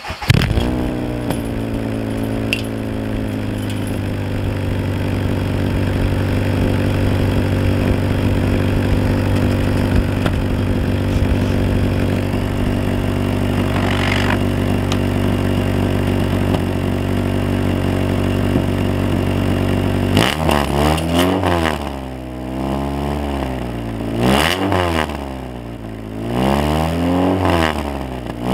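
Honda Civic four-cylinder engine heard through a Sapporo steel beer can fitted over the exhaust tip as a makeshift silencer. The engine catches, settles to a steady idle, and about 20 seconds in is revved sharply several times.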